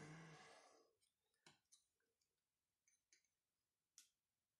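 Mostly near silence: a short noise in the first second, then a few faint, scattered clicks as a stubborn plastic grommet is forced into its hole in a Babolat Pure Strike racket frame with a screwdriver.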